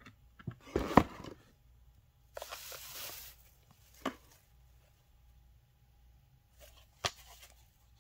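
Cardboard product boxes being handled: a few knocks about a second in, the loudest of them a sharp knock, then a brief rustle of cardboard and paper sliding, and single light clicks near the middle and near the end.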